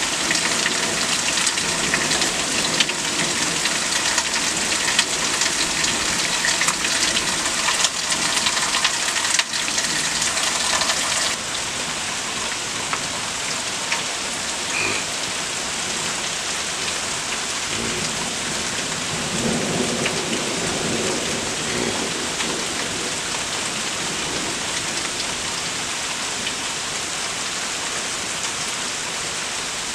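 Heavy thunderstorm rain falling steadily, easing slightly about a third of the way through. A low rumble of thunder rolls in around two-thirds of the way through.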